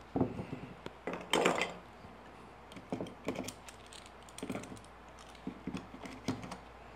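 Scattered light clicks and knocks of a small metal bar clamp and marking tools being handled and set against wooden lattice bars, with one longer scrape about a second and a half in.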